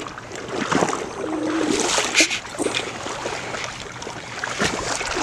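Water sloshing and splashing in irregular bursts as someone moves through marsh water, with small knocks among them.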